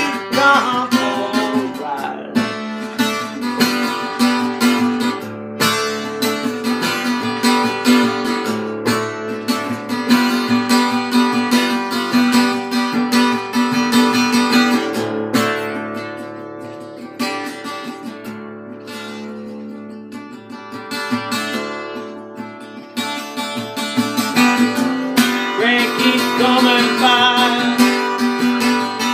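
Epiphone EL-00 parlor acoustic guitar strummed hard with a flat pick in an alternate tuning, playing an instrumental folk-rock passage. It drops to a quieter stretch about halfway through, then builds back up to full strumming near the end.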